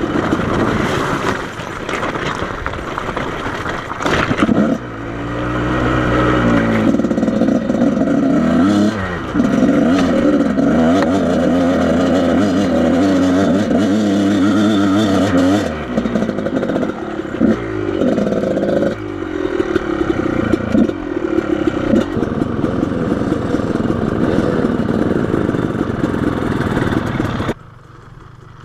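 Off-road motorcycle engine revving up and down as the bike climbs a rough desert wash, with scraping and clattering from the bike over rocks and brush. The engine sound drops off sharply about a second before the end.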